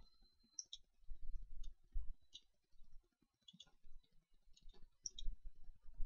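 Computer mouse buttons clicking, single and quick double clicks about once a second, with low thuds.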